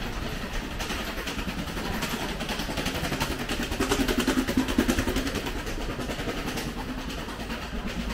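A train running on the elevated railway overhead, heard from beneath the viaduct, with a rapid run of wheel clacks; it swells to its loudest about four to five seconds in.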